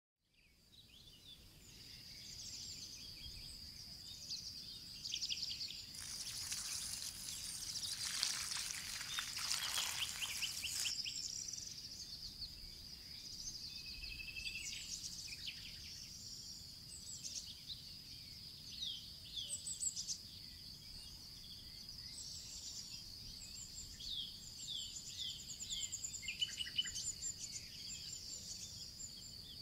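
Outdoor nature ambience: birds chirping and calling over a steady high-pitched drone, with a louder, dense flurry of rapid calls between about six and eleven seconds in.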